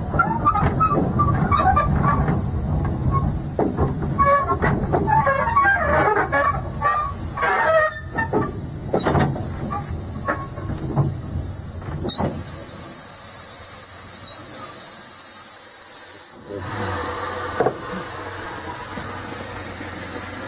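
Small narrow-gauge steam locomotive coasting with the regulator shut, heard from the footplate: wheels and running gear clanking and rattling over a low rumble, giving way about twelve seconds in to a steady steam hiss.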